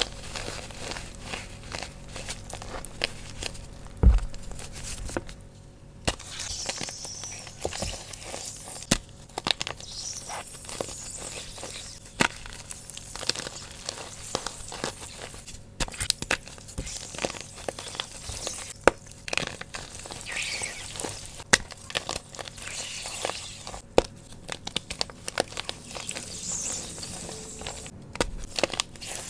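Fresh blocks of Sports Chalk gym chalk crushed and crumbled between bare hands: a dense, irregular run of crunches and crackles, with a short lull about six seconds in.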